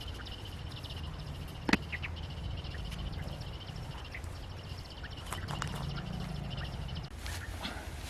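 Outdoor ambience with a high-pitched, steady, fast-pulsing trill that stops about seven seconds in, over a low rumble, with one sharp snap near two seconds in.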